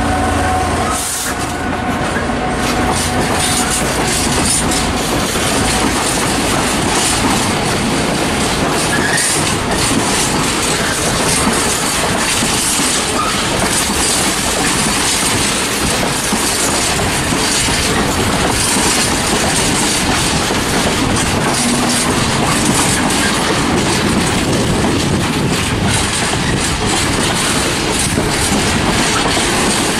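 A freight train of empty steel-carrying bogie wagons, hauled by a Class 66 diesel, rolling past at speed with a steady rumble and the clickety-clack of wheels over rail joints. The locomotive's engine hum dies away about a second in.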